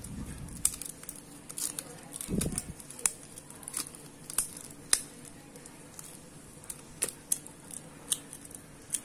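Fingers working at a microSD card's clear plastic blister pack, the stiff plastic crinkling and clicking in irregular sharp crackles with a couple of short rustles. The pack is hard to open and is not open yet.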